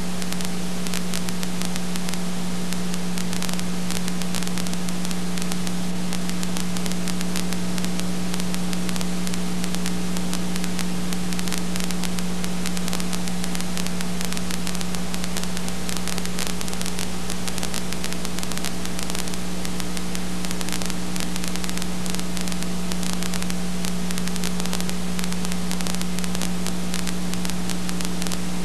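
Steady static hiss with a constant low hum and a few faint steady tones, and nothing else: the empty soundtrack of a silent home-movie transfer.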